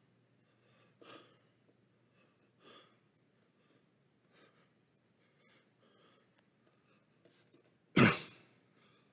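A man coughs once, sharply, about eight seconds in, after a few faint soft knocks in a hushed church.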